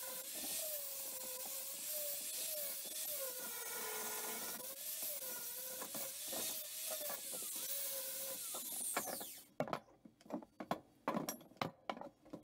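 Angle grinder grinding the end of steel square tubing, its whine wavering in pitch as the disc is pressed into the metal. About nine seconds in it stops and winds down, followed by a handful of sharp knocks as the metal is handled.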